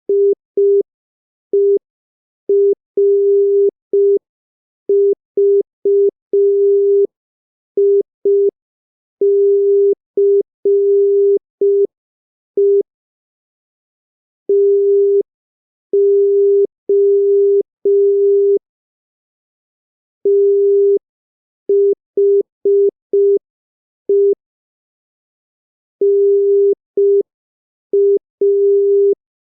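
Morse code sent as a single steady beep tone, switched on and off into short dots and longer dashes that are grouped into letters with silent gaps between them, at a slow practice speed of 5 words per minute.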